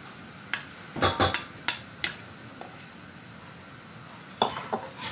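Spatula clacking against a wok of shell-on snails in coconut milk as they are stirred: a handful of sharp knocks about a second in, and a few more near the end.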